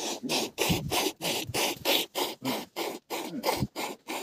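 Jets of camel milk squirting from the teats into a steel bowl of frothy milk during hand milking. The squirts come in a steady rhythm of about three a second, each a short hiss.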